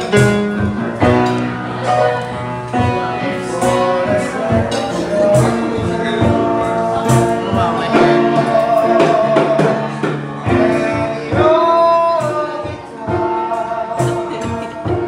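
A man singing a song over music with a steady percussive beat.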